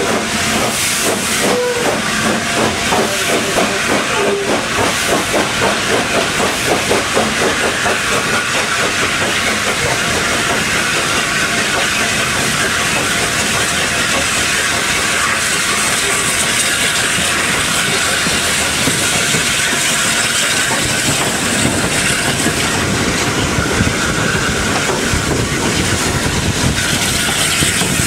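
BR Standard Class 8 three-cylinder Pacific No. 71000 'Duke of Gloucester' running under steam, heard from the footplate. Exhaust beats in a quick, regular rhythm for the first several seconds, then they blend into a steady rush of steam hiss and running noise.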